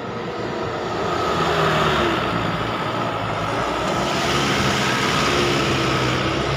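Diesel tipper truck driving past close by, the engine sound growing louder over the first couple of seconds and then holding steady, with a whine and the noise of tyres on dirt.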